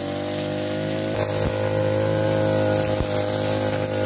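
Petrol brush cutter's two-stroke engine running at a steady pitch while its trimmer head cuts grass, a little louder from about a second in.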